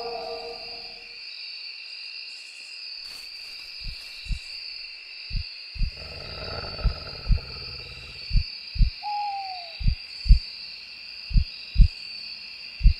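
Night sound-effects track: an owl hoots once, a short falling call about nine seconds in, over a steady high insect-like drone. From about four seconds in a slow heartbeat thuds in double beats about every second and a half. A low howl fades out in the first second.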